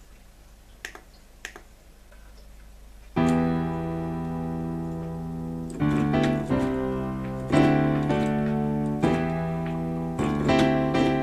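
Korg 01/W FD synthesizer playing its 16' Piano program: sustained piano chords that start about three seconds in and change every second or two, after a few light clicks.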